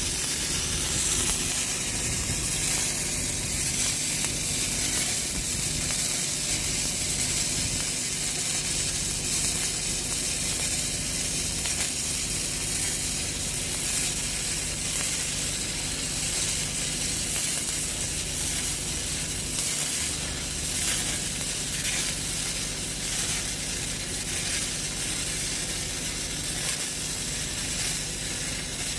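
Stick-welding arc burning a root pass on pipe with a cellulosic electrode: a steady crackling sizzle that runs unbroken, with a steady low hum underneath.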